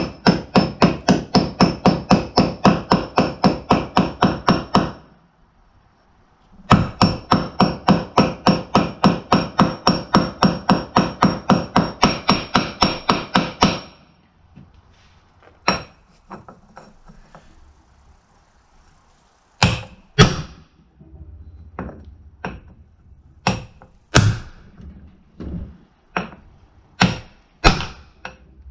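Hammer driving a bearing race into a Scag mower's front caster housing, metal ringing with each blow. There are two long runs of rapid blows, about five a second, with a short break between, then slower single blows near the end as the race seats.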